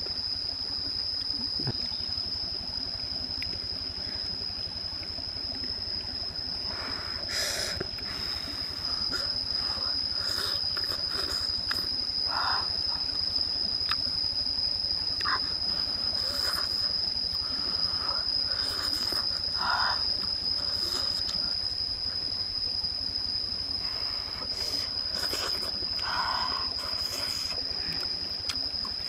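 A steady high-pitched insect drone, with short chewing and lip-smacking sounds now and then from someone eating with her fingers.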